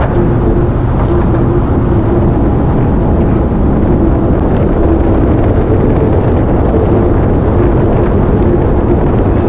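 Steady engine and road rumble heard from inside a moving truck's cab, heaviest in the low end, with a faint steady hum above it.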